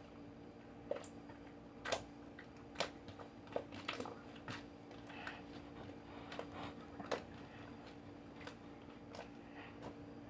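Slime being squished and pressed by hand, giving irregular sharp crackling pops and clicks, the loudest about two, three and seven seconds in, over a faint steady hum.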